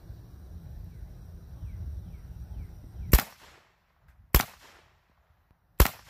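A rifle fired three times outdoors, the shots a little over a second apart, after about three seconds of low rumble from wind on the microphone.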